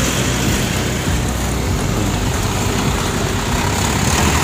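Street traffic: motor vehicle engines running steadily close by.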